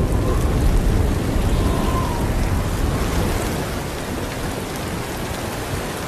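Steady rain falling, with a low thunder rumble that dies away over the first second or two; the rain then eases gradually.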